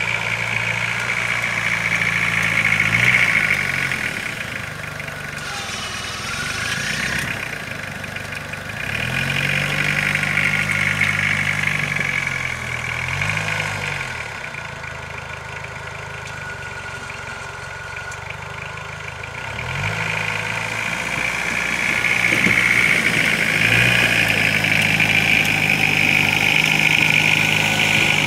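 Volkswagen 1.9 turbodiesel (AAZ) engine of a homemade ATV running, its speed falling and rising again several times, with a steady high whine over the engine note.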